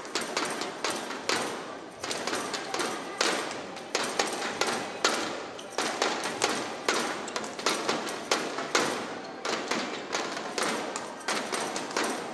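Badminton rally: racket strikes on the shuttlecock and players' footfalls on the court, sharp knocks coming irregularly, several a second.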